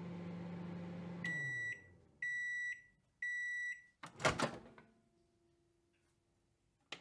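Microwave oven running with a low hum that winds down as the timer reaches zero, then three high beeps about a second apart. After the beeps comes a short clatter of clicks as the door pops open.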